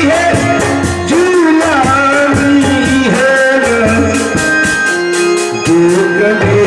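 Live folk dance music: a gliding melody over a fast, steady drum beat, with some singing.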